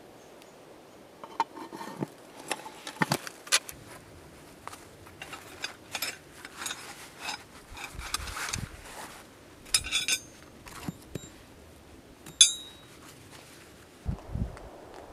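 Steel rods of an adjustable pot hanger clinking and clattering against each other as they are handled. Near the end there is one sharp, ringing metal clink, followed by a couple of dull thuds as the rods are set down on the ground.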